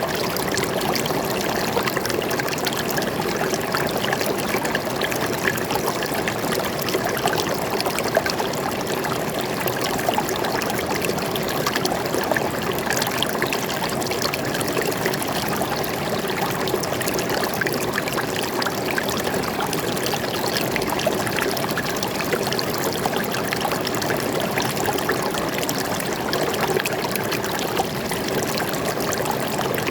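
Stream water flowing and trickling steadily, a constant splashing rush with fine bubbling crackle.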